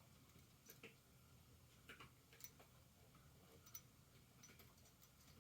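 Near silence with a few faint, irregular clicks and ticks, as of small parts being handled.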